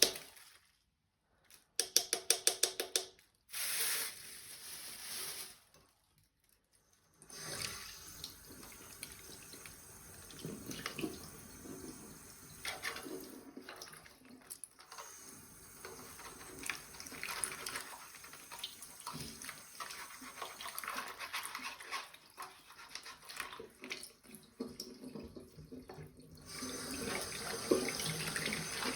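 Water running from a kitchen tap with items knocking and being handled under it, louder near the end. Before the water starts there is a quick run of rapid clicks and a short hiss.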